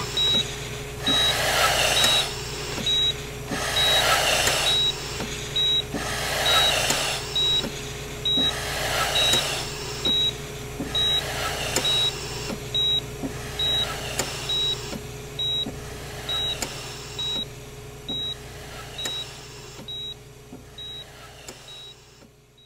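Hospital heart monitor beeping steadily, a little under once a second, over the slow rhythmic whoosh of a ventilator and a steady electrical hum. It all fades out near the end.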